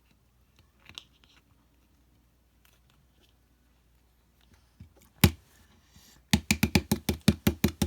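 A few faint clicks, a single sharp knock about five seconds in, then a fast, even clatter of about seven clicks a second near the end.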